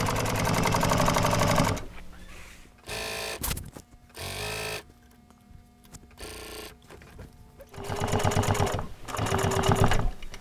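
Juki DNU-1541S walking-foot industrial sewing machine stitching through layers of upholstery fabric and cording. It makes a steady run of rapid stitches that stops about two seconds in. A few short bursts follow, then two longer runs near the end.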